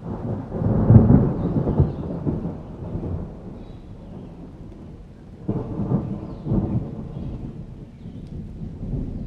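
Thunderstorm: steady rain with rolling thunder. A loud low rumble peaks about a second in and fades, and a second rumble rolls in about halfway through.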